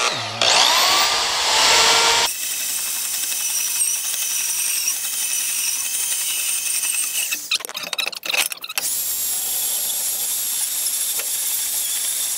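Corded portable band saw spinning up with a rising whine, then cutting through steel angle iron with a steady, high-pitched grinding of the blade in the metal. Past the middle the cut breaks off for about a second with a few clanks, then the saw cuts steadily again.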